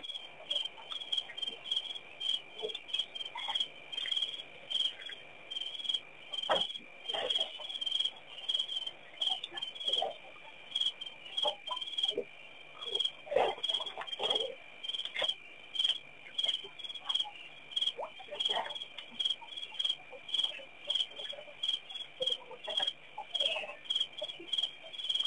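Dusk chorus of chirping insects: a steady high trill with rhythmic chirps about three times a second, and scattered lower bird calls.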